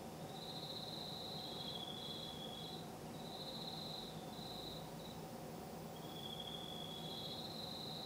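Crickets trilling in repeated phrases of about a second, two at slightly different pitches answering each other, over a faint low steady hum.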